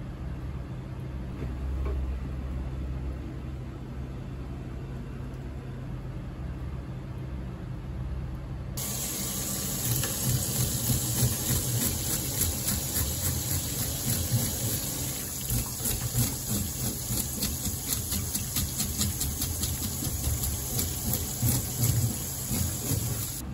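Kitchen tap water running into a stainless steel sink, coming on suddenly about a third of the way in, with a rapid run of short scraping strokes as a fish is scaled under the stream.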